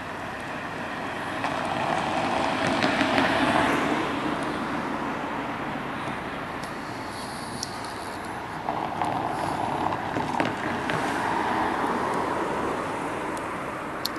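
Passing road traffic: tyre and engine noise swells up and fades twice, loudest about three seconds in and again around ten seconds in.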